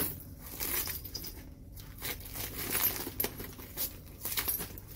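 Secondhand handbags being pulled and shifted by hand in a heap, with plastic sacking around it: irregular rustling and scraping, broken by short clicks.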